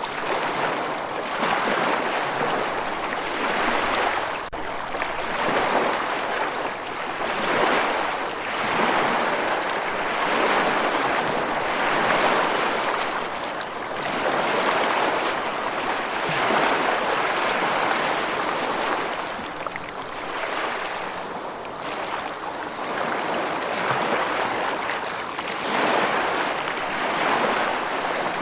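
Rushing water, a dense steady hiss that swells and eases every two to three seconds.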